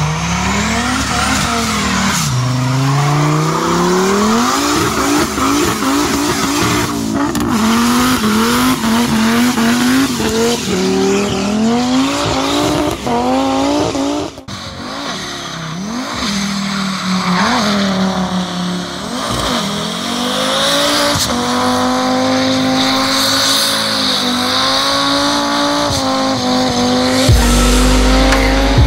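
Turbocharged Volvo B5244T5 inline-five in a BMW E36 revving hard again and again during a burnout, the engine note rising and falling over squealing, spinning tyres. Music starts near the end.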